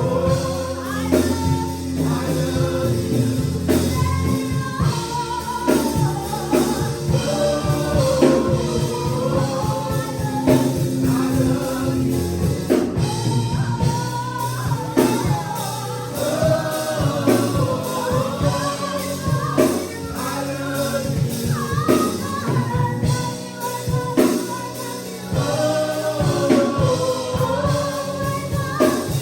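Gospel music: voices singing a melody over held chords, with a drum kit keeping time.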